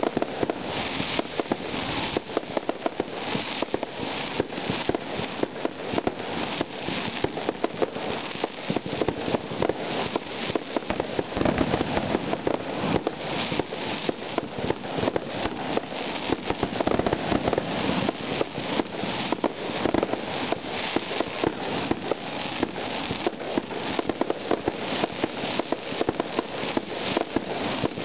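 Fireworks finale: a rapid, unbroken barrage of aerial shell bursts and crackle, several reports a second.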